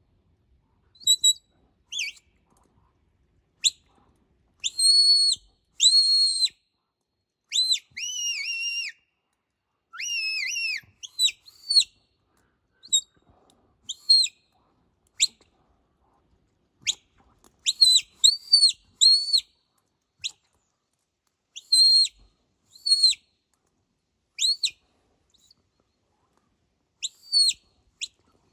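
A sheepdog handler's whistle commands: a run of high whistle notes, short sharp blasts mixed with longer held notes that rise or fall, directing the herding dog around the sheep.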